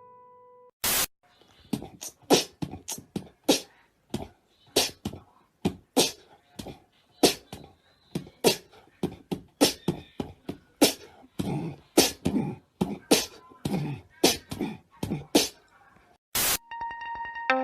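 A long, irregular series of sharp clicks and knocks, about two or three a second, with a louder hit about a second in and another near the end.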